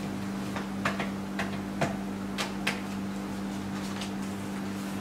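Short sharp clicks and taps of playing cards and hands on a tabletop, about half a dozen in the first three seconds and one more near the end, over a steady low electrical hum.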